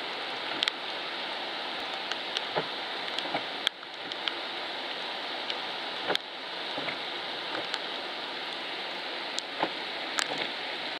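Steady hiss of falling rain, with scattered sharp ticks of drops striking a nearby hard surface.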